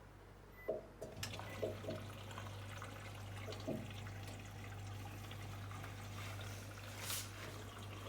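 Bosch front-loading washing machine starting its drum-clean cycle: a few clicks, then water running into the machine with a steady low hum that starts about a second in.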